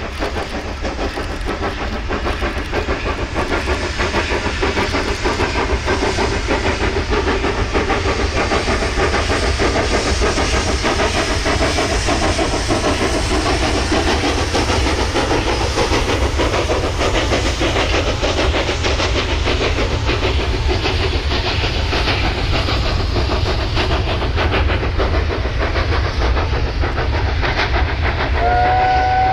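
South African Railways class 25NC 4-8-4 steam locomotive working hard, its exhaust a dense, steady noise that grows louder over the first few seconds. Near the end its steam whistle sounds a chord of several tones at once.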